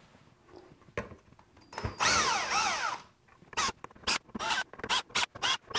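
A cordless drill/driver runs in an M3 screw to a threaded insert in a 3D-printed plastic mold ring. Its motor whine wavers up and down in pitch for about a second. Then comes a quick run of short, sharp clicks.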